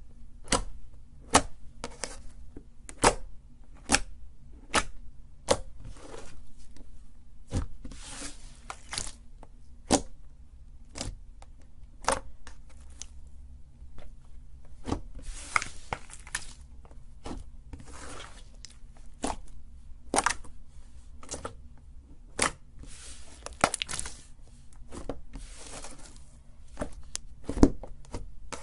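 Slime being squeezed and pressed by hand: a string of sharp pops and clicks, at first about one a second, with crackling and rustling between them over a low steady hum.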